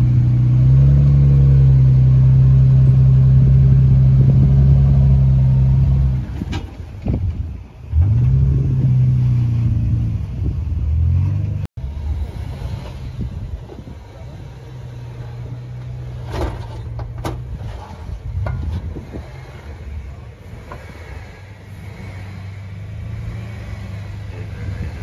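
Jeep Wrangler engine working hard under load as the Jeep crawls up a sandstone rock ledge: loud and steady for several seconds, easing off, then pulling again. After an abrupt cut, a second Wrangler's engine runs more quietly as it crawls over rock, with a few sharp knocks.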